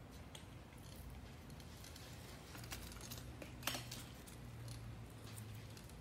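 Quiet outdoor ambience with scattered light clicks, a sharper click a little after halfway through, and a low steady hum through the middle seconds.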